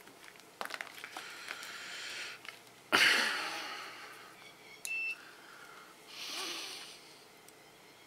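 A single short high beep from a digital multimeter about five seconds in, amid light clicks of handling. The loudest sound is a breathy exhale about three seconds in that fades over a second or so, with a softer breath after the beep.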